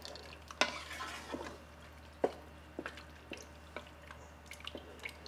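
Wooden spoon stirring a milky sauce in a pot: wet liquid sounds with irregular soft knocks of the spoon against the pot.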